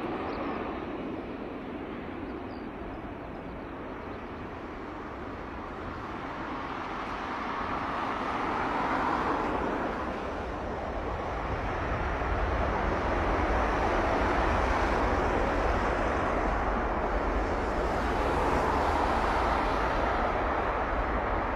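Jet engines of a McDonnell Douglas KC-10 Extender tanker on the runway, a steady rushing noise that grows louder about halfway through and stays loud, swelling twice.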